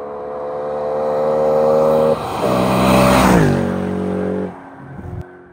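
A car drives past at speed. The engine note grows louder as it approaches, dips briefly about two seconds in, peaks around three seconds in as it passes with the pitch falling, then fades as it drives away, and the sound cuts off at the end.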